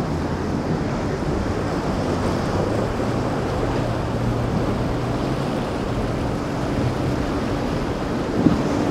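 Wind buffeting the microphone over the wash of rough surf, with the steady drone of a boat's engines running through the inlet. A short thump comes near the end.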